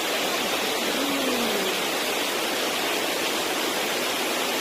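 Mountain stream cascading down a granite gorge below a high waterfall: a steady, even rush of white water.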